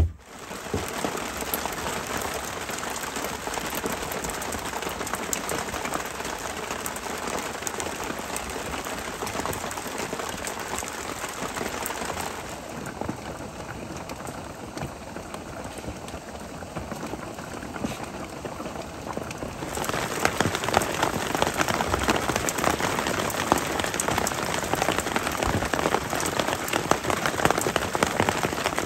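Steady rain falling, softer for a stretch in the middle and heavier again for the last third.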